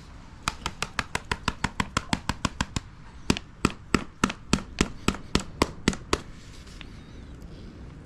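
A run of sharp, evenly spaced mechanical clicks, about six a second for a couple of seconds, then louder and slower at about three a second for about three seconds.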